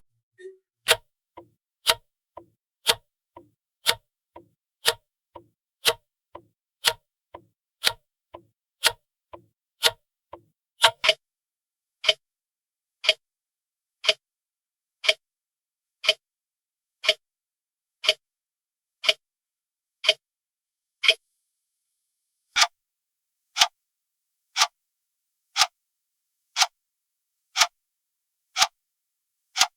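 Clock ticking. For about the first eleven seconds it goes at roughly two ticks a second, alternating a stronger and a weaker tick. After that it settles to a single, sharper tick about once a second.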